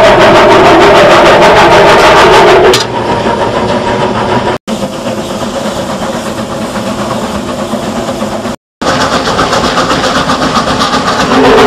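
Cab sounds of the wood-fired narrow-gauge steam locomotive Eureka & Palisade No. 4: a loud steady rush with a held tone as the firebox is open, changing about three seconds in to the quieter, evenly pulsing sound of the locomotive running along the track. There are two brief dropouts, and the louder toned sound comes back near the end.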